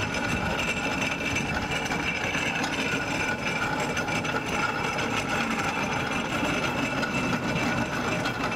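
A machine running steadily: a dense rumble with a few steady high tones over it, unchanging throughout.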